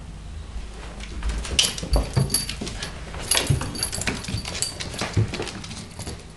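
Small dog whining excitedly as it begs for its toy. Its paws thump on the floor about three times as it jumps up and lands, with its claws clicking in between.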